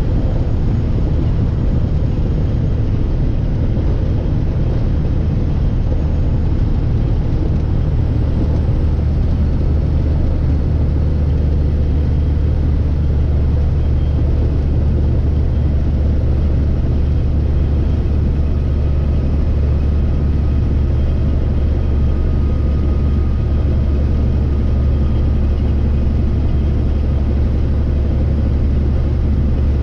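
Semi-truck diesel engine and road noise heard from inside the cab while cruising at highway speed: a steady, deep drone that holds even throughout.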